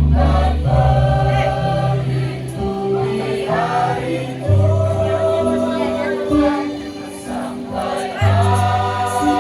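A choir singing over sustained low accompaniment notes that change every second or so.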